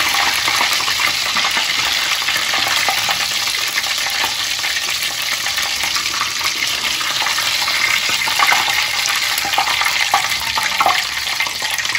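Marinated chicken leg pieces sizzling and crackling steadily in hot oil during their second deep-fry. A slotted metal spoon stirs through the oil as the fried-through pieces are lifted out.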